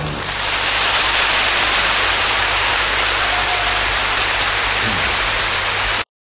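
A steady, even hiss of rushing noise that stops suddenly near the end.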